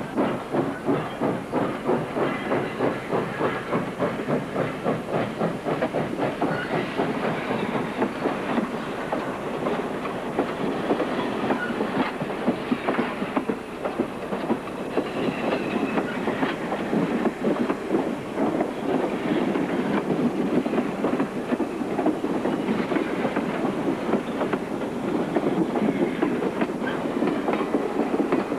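Steam locomotive passing, its exhaust chuffing in a steady beat, then passenger coaches rolling by with their wheels clattering over the rail joints.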